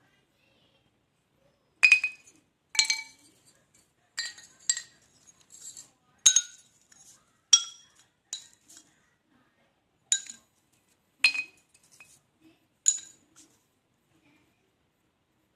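Pieces of rubber wood charcoal knocked together, giving about a dozen irregular sharp clinks, each with a brief high glassy ring. A ring like this is the sign of hard, well-carbonised charcoal of good quality.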